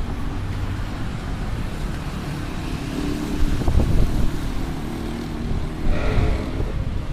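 City street traffic: vehicle engines running and passing by, louder for a moment a few seconds in, with a brief higher-pitched sound about six seconds in.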